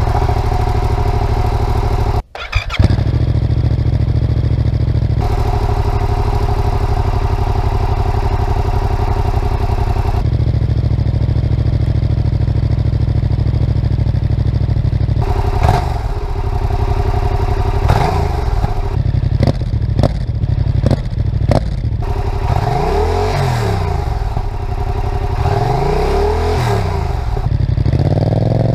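Yamaha MT-07 parallel-twin motorcycle engine idling steadily through its exhaust, then revved: a series of short, sharp throttle blips, followed by two longer revs that rise and fall back to idle near the end.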